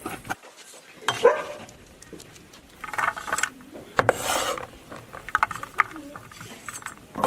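Food-preparation noise at a cutting board: several short, irregular bouts of scraping and rubbing, with a few light knocks, as cut duck gizzards and vegetables are handled and gathered up.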